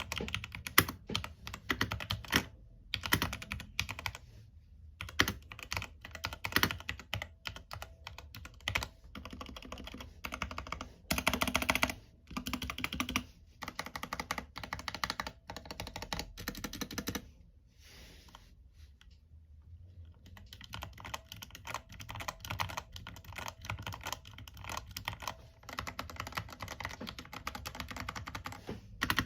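Typing on a Surmen 60% compact mechanical keyboard as a sound test: runs of rapid key clicks and clacks with short breaks, and a longer pause of about two seconds a little past the middle.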